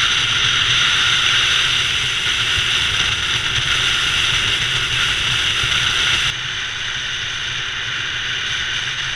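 Motorbike riding at speed, heard from a camera on the bike: a steady rush of wind over the microphone with the engine's low hum underneath. The level drops slightly about six seconds in.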